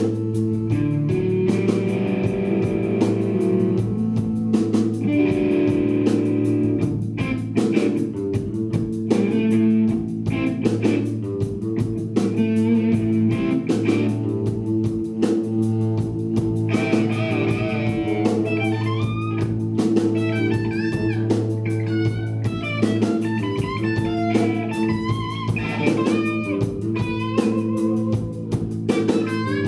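Live blues-rock band playing an instrumental passage: a lead electric guitar over a steady bass line and drums. Past the halfway point the guitar plays quick, bent, wavering solo lines.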